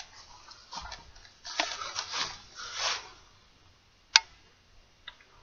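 Handling noise from a .22 pump-up pellet rifle being moved about: a few soft rustles, then one sharp click about four seconds in and a smaller click near the end.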